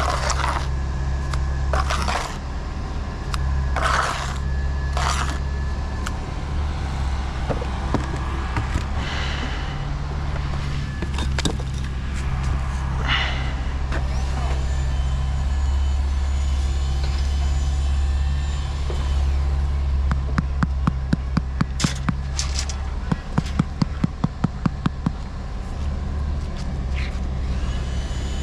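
Building-site noise: a steady low machine drone with scattered scrapes, and two quick runs of sharp ticks or taps about two-thirds of the way through.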